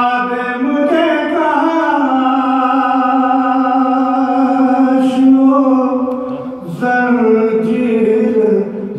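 A man's solo voice reciting an Urdu mourning poem (kalaam) in a sung, melodic style, unaccompanied. He holds long notes, with a short break for breath about two-thirds of the way through.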